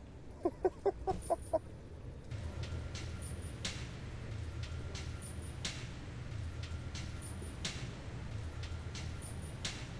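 A chicken clucking: about six quick clucks in a row in the first second and a half. From about two seconds in, a steady low rumble sets in, with a sharp tick roughly every two seconds.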